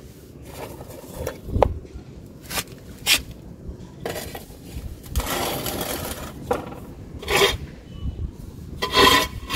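Dry crumbled clay chunks and powder being handled in a plastic plate: rubbing and scraping with scattered knocks and clicks, and a longer stretch of scraping about five seconds in, over a steady low wind rumble on the microphone.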